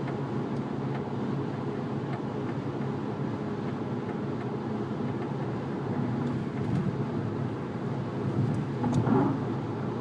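A 2010 VW Jetta TDI being driven, with a steady running and road noise and a few short knocks scattered through it, the loudest about nine seconds in. The knocking comes and goes and happens at all speeds; its cause is not known.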